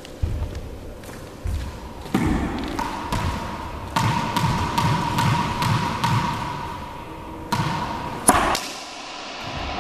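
Racquetball bouncing on a hardwood court floor in a handful of separate knocks, then a sharp crack about eight seconds in as a backhand swing strikes the ball with the racquet. Each knock rings on briefly in the hard-walled court.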